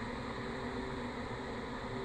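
Steady low mechanical hum and hiss, with two faint steady tones running through it.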